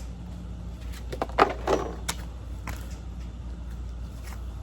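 A few short clicks and knocks of parts being handled, the loudest about a second and a half in, over a steady low hum.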